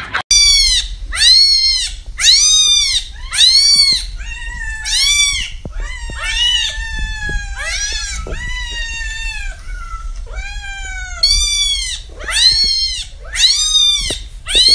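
Cat meows repeated over and over, each one rising and then falling in pitch. For the first few seconds they come in quick succession, then a stretch of longer, lower, drawn-out meows follows, and near the end the quick meows start again.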